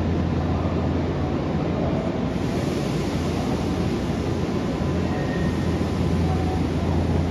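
Nankai 8300 series electric train standing at the platform, its onboard equipment giving a steady low hum. A brighter hiss joins about two seconds in.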